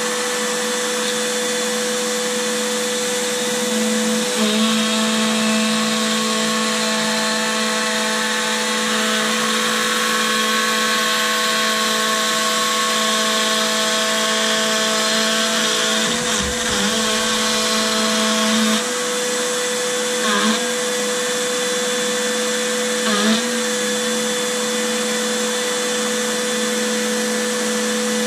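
Carbide 3D router spindle on a Shapeoko CNC running at a steady high pitch as it cuts across an MDF spoilboard, with the rush of dust extraction. A few brief wobbles in pitch and a low rumble come in the second half.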